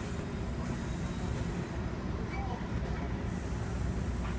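Steady low rumble of a passenger train rolling along the track, heard from inside the coach.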